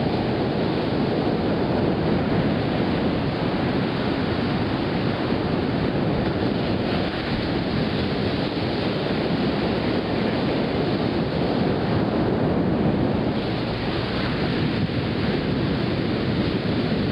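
Ocean surf washing in steadily, mixed with wind buffeting the microphone as a low rumble.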